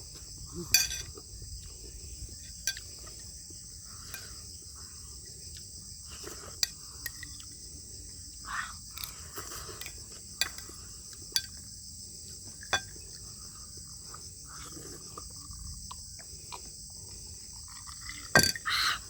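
Close-up eating sounds: wet chewing and sucking at beef bones and soup, with several sharp clicks, the loudest near the end. A steady high chirring of crickets runs underneath.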